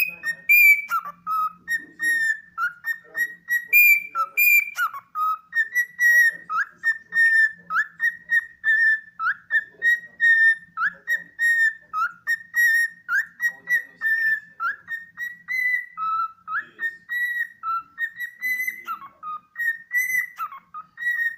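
Cockatiel whistling a long run of short, clear notes, about two to three a second, jumping back and forth between a higher and a lower pitch: a mash-up of learned tunes.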